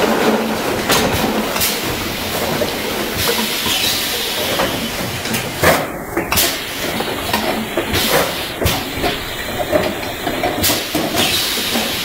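Pneumatic piston filling and screw capping machine running: a steady mechanical hiss with sharp air-release bursts and clacks every second or two.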